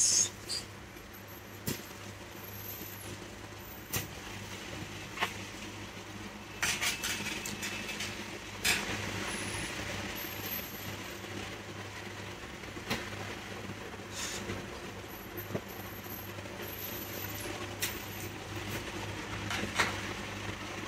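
Small sharp metal clicks and taps, scattered every second or two and a few in quick clusters, as fine tweezers work the pins of a laptop motherboard connector. Under them runs a steady low electrical hum.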